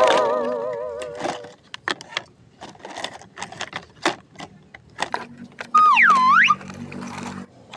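Cartoon-style sound effects over the clatter of plastic toys: a wobbly, warbling tone fades over the first second and a half, then there are scattered short clicks and clacks, and about six seconds in a whistle-like tone swoops down and back up over a low hum.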